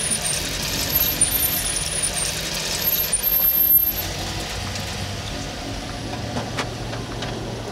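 Car pulling up on a wet road: tyre hiss on wet pavement with the engine running, settling to a steady low engine idle. A few sharp clicks come near the end.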